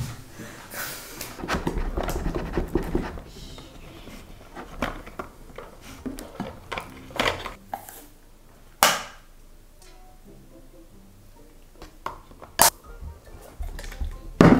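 Scattered small clicks and knocks of plastic bottles and spoons against plastic bowls as slime is mixed, with a few sharper knocks in the second half.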